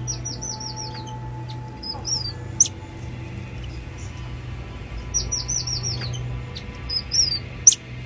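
High-pitched chirping calls: a quick run of about six descending chirps, a short two-note chirp and a sharp rising whistle, with the same phrase repeated about five seconds later. A steady low drone of background music runs underneath.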